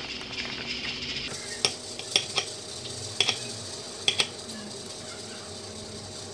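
Plastic pouch crinkling as it is peeled off a grilled eel, then kitchen scissors snipping through the eel and metal tongs clicking against the ceramic plate: about seven sharp clicks, several in quick pairs.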